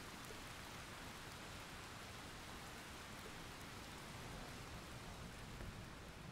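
Steady rain falling from a thunderstorm recording, an even wash of rainfall noise.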